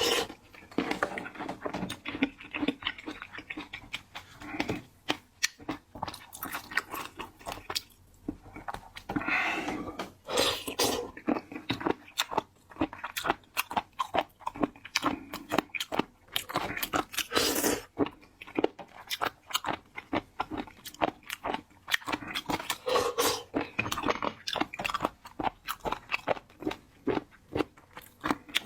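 A person eating seafood close to the microphone: a run of irregular crunching bites and crackles between stretches of wet chewing.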